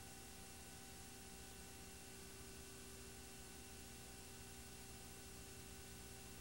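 Near silence: the steady faint hiss and hum of a soundless film transfer, with no sound of its own.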